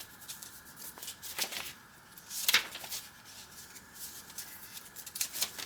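Paper rustling as journal pages and tucked-in paper cards are handled: a few short rustles, the loudest about two and a half seconds in.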